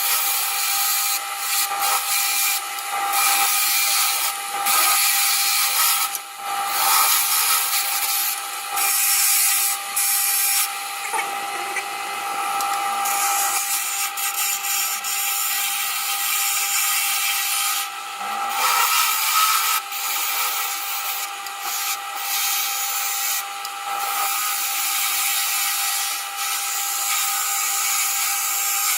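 Wood lathe running with a steady motor whine while a turning tool cuts the spinning wood, a continuous hiss that breaks off briefly every few seconds as the tool lifts from the work.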